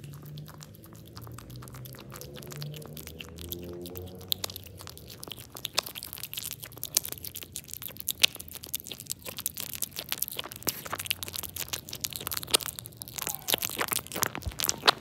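Baby otter chewing and crunching on fish: a fast, irregular run of wet, crackling bites starting about four seconds in. Near the end there is a short squeak.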